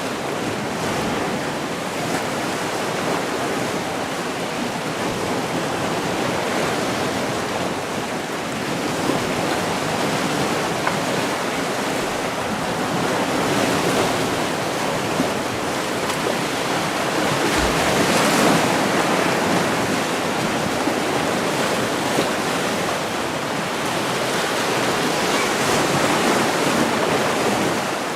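Sea surf: waves washing in and breaking in a steady rush, swelling and easing every few seconds.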